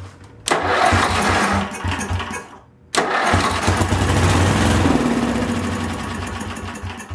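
Sears garden tractor engine on choke, cranked with its electric starter just after a carburetor rebuild. A first try of about two seconds dies away; about three seconds in, a second try starts suddenly, the engine fires and runs briefly, then fades out near the end.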